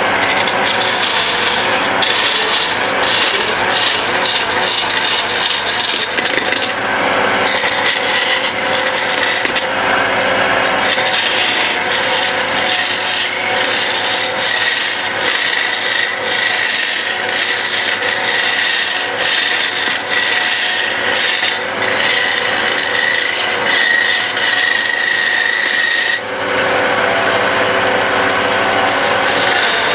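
Wood lathe running, with a tool scraping and rubbing against the spinning wooden pestle blank. The rasping is steady, with a high whine over much of it, and the sound changes abruptly about 26 seconds in.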